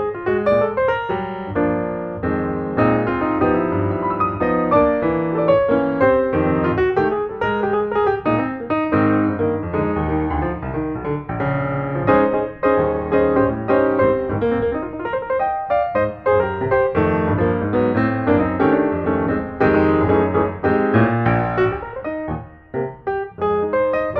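Background piano music, a steady stream of notes with no singing.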